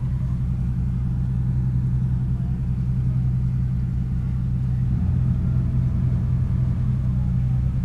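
Steady low engine hum, unchanging apart from a slight shift about five seconds in.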